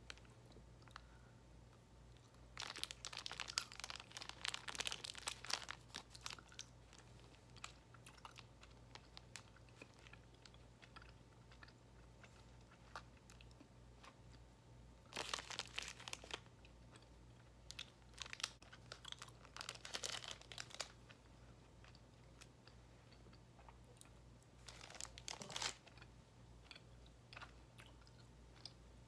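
Plastic fruit-snack pouch crinkling in four short bursts as it is handled, with faint chewing of gummy fruit snacks in between.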